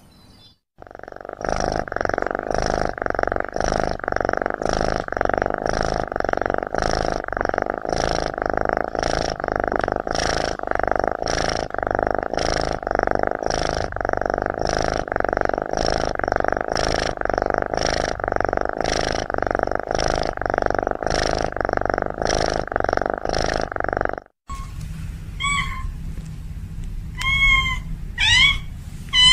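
A cat purring steadily, with an even pulse of just under two beats a second, for over twenty seconds; it stops suddenly, and then the cat meows several times in short, bending calls.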